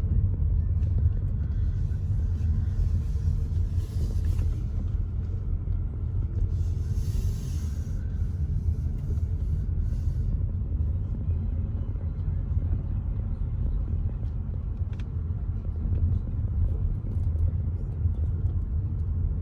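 Car in motion heard from inside the cabin: a steady low rumble of engine and road noise, with two brief hissy swells a few seconds in.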